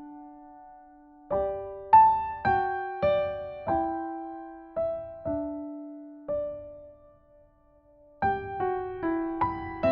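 Slow solo piano music: single struck notes that ring and fade one after another, stopping briefly about seven seconds in before the playing resumes.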